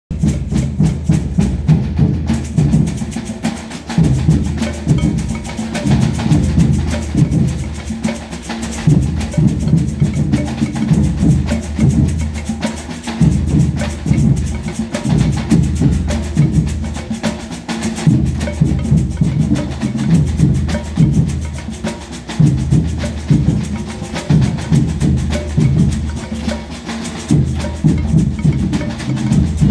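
Samba batucada played by a street percussion band: surdo bass drums beating a steady, driving rhythm under rattling snare drums and higher hand percussion.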